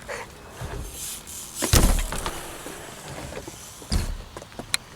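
Skatepark trick attempt: rolling wheel noise with a heavy thud about two seconds in and two sharper knocks near the end, as the rider lands and hits the ramp.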